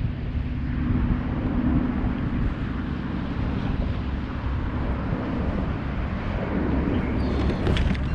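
Wind buffeting an action-camera microphone out on open water: a steady low rumble with a faint hum in the first few seconds, and a few sharp clicks near the end.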